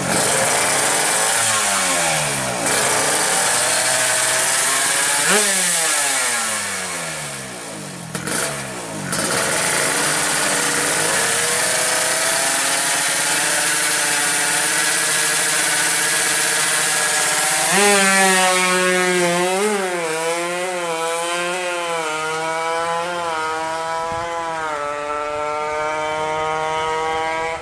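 Suzuki Satria 125 cc two-stroke drag motorcycle with a YY Pang racing exhaust, revved hard at a standstill in sharp blips whose pitch falls away, then held at high revs. A little past halfway it launches and accelerates away, its pitch climbing and dipping several times as it shifts up.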